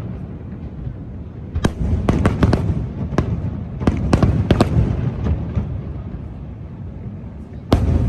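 Fireworks display: aerial shells bursting in quick clusters of sharp bangs over a continuous low rumble, with a single louder bang near the end.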